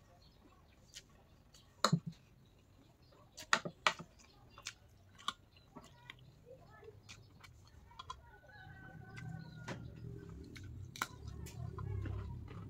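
Metal fork and spoon clinking and scraping against a plate of noodles, a dozen or so sharp clicks, with chewing between them. A low rumble builds over the last few seconds.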